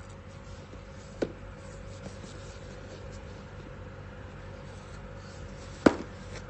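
Room tone with a faint steady electrical hum, broken by two sharp clicks or knocks: a light one about a second in and a louder one near the end.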